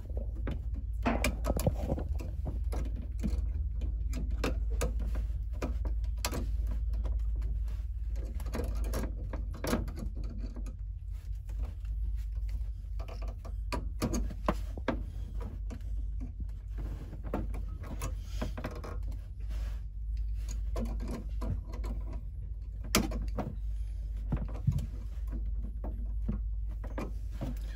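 Pliers twisting bare copper ground wires together at a metal electrical box: scattered small metallic clicks and scrapes over a steady low hum.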